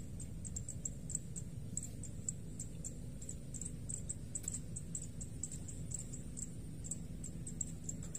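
Outdoor ambience: short, high-pitched chirps repeating several times a second at uneven spacing, over a steady low hum.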